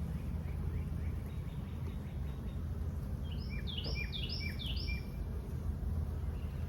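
A songbird sings a short phrase of about five quick, sliding notes a little past halfway through, over a steady low hum.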